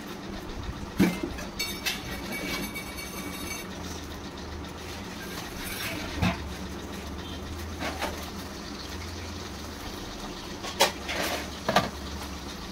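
Metal spatula clinking and knocking against a kadai several times, sharpest about a second in and twice near the end, over a steady low rumble.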